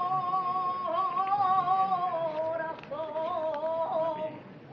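A saeta, the unaccompanied flamenco-style Holy Week song, sung by a solo voice: a long held note, then a fall in pitch and a run of wavering melismatic turns, with the phrase breaking off near the end.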